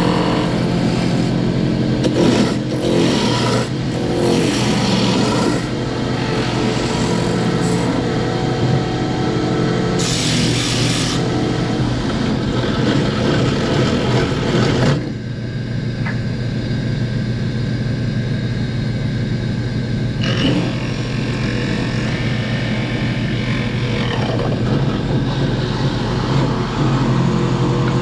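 A motor running steadily with a constant hum. About ten seconds in there is a brief harsher, hissing burst, and about halfway through the high-pitched noise drops away while the hum carries on.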